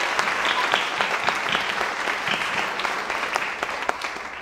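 Congregation applauding, a dense patter of many hands clapping that tapers off slightly toward the end.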